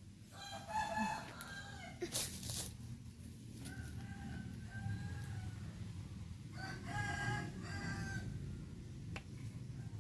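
Rooster crowing twice, each crow about a second and a half long, with a fainter call in between. A sharp tap sounds about two seconds in.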